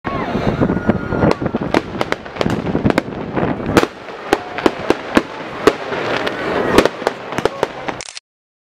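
Fireworks going off: a continual string of sharp bangs and pops, often several a second, over a constant crackling noise.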